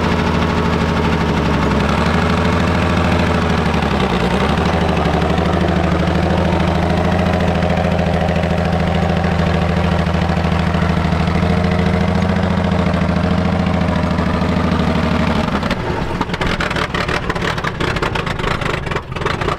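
The WWII Chevrolet truck's old inline-six engine runs steadily as the truck drives slowly. Its pitch sags briefly about two and four seconds in. For the last few seconds the steady engine note gives way to an uneven, rattly noise.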